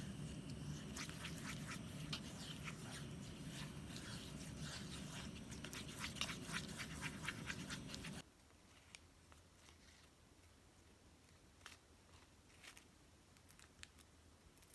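Small clicks and crackles of hands working craft materials, over a steady low hum that cuts off suddenly about eight seconds in; after that only a few scattered faint clicks.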